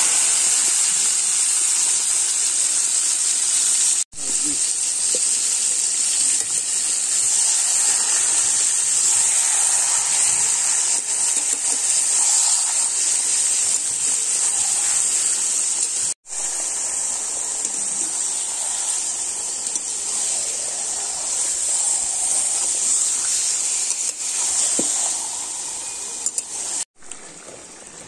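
Marinated chicken pieces sizzling in hot oil in a kadai, a loud, steady frying hiss. It cuts out abruptly three times for a moment and is quieter after the last break near the end.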